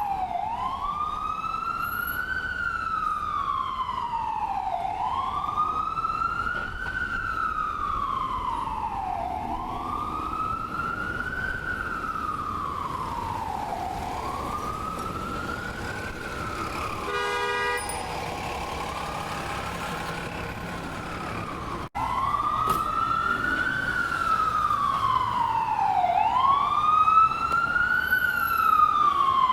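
Ambulance siren in its slow wail, rising and falling about every four and a half seconds. A short steady blast cuts in about two-thirds of the way through. Near the end the siren drops out for an instant and comes back louder.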